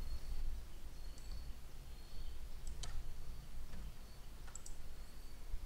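Scattered single clicks of a computer mouse, a handful spread over a few seconds, over a faint background hum.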